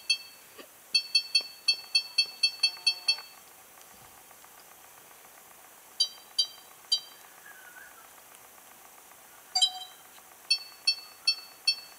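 Sony HDR-PJ540 camcorder's touchscreen beeping once for each step as the clock's minutes are scrolled with the arrow button. Quick runs of short, high, identical beeps about four a second, a pause in the middle with a few single beeps, then a fast run again near the end.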